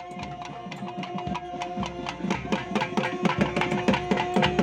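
Traditional South Indian mangala vadya music: quick, continuous hand-drum strokes under a long held wind-instrument note.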